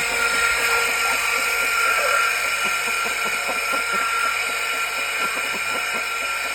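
Electric grinder running with a steady high-pitched whine, used to trim back a rooster's spurs.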